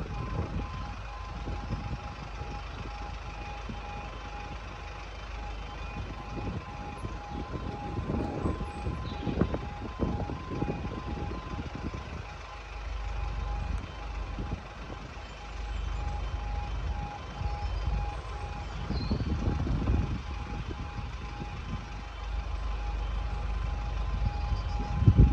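Railway level crossing alarm sounding a steady pulsing two-tone warning as a train approaches the crossing, over a low gusty rumble.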